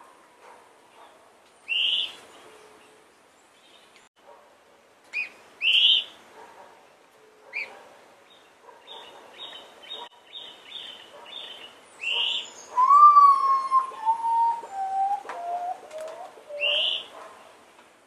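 A potoo singing: a slow series of mournful whistled notes, each lower than the last, in the second half. Other birds give loud short upswept chirps and a quick run of high notes around it.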